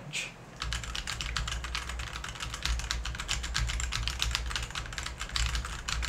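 Fast typing on a Royal Kludge RK100 mechanical keyboard with its stock red linear switches: a dense run of key clacks that starts about half a second in. These are standard, non-silent reds, plainly louder than Cherry Silent Reds.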